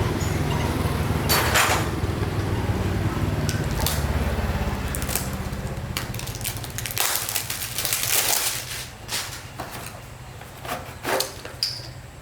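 A motor running steadily, then fading out about eight seconds in, with scattered knocks and metal clinks of tools and parts being handled.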